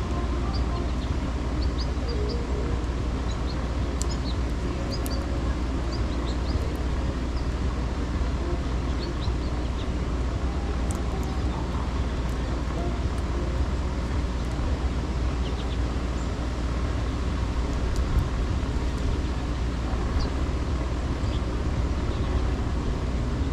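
Steady low rumble of wind and city traffic, with small songbirds giving short, faint chirps now and then over it.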